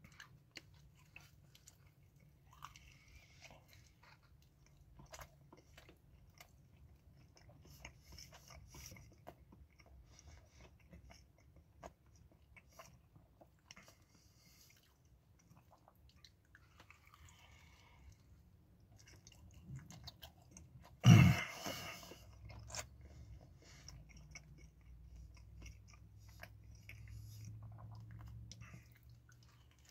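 A man chewing and biting into a slice of New York style pepperoni pizza, with soft crunching of the crust and faint mouth clicks. One brief loud noise comes about twenty-one seconds in.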